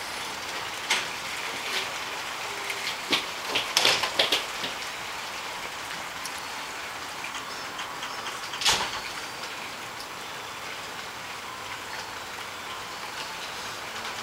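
HO scale model train running on the layout: a steady rolling hiss of wheels on the track with scattered clicks, the sharpest about nine seconds in.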